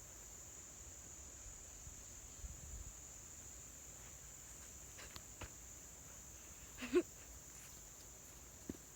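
Steady high-pitched chorus of late-summer crickets. There are a few soft footfalls in the first half and a short, sharp sound about seven seconds in, the loudest moment.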